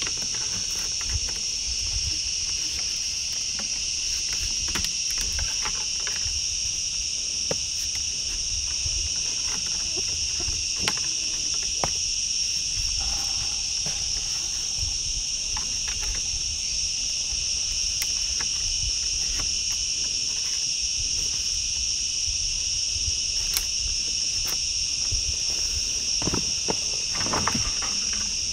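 Jungle insects calling in a steady, unbroken high-pitched drone, with scattered light clicks and a few rustles of handling near the end.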